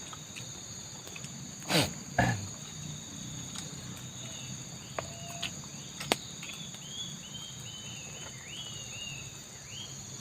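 Steady chorus of forest insects, crickets or cicadas, holding a high buzz. A brief loud noise cuts in about two seconds in, and a run of short high chirps comes in the second half.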